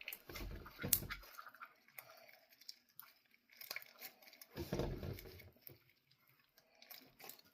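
Faint squishy handling of slime being mixed and kneaded, with scattered small clicks and two brief louder bouts of handling, about a second in and about five seconds in.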